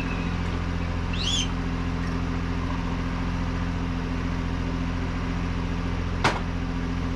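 Sailboat's inboard diesel engine running steadily under the cabin, a constant low drone. A short rising squeak comes about a second in, and a single sharp knock near the end, like a mug set down on the steel counter.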